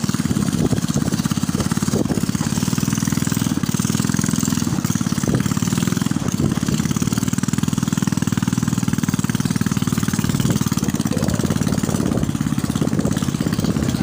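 Motorcycle engine running steadily while riding along, heard from the rider's seat.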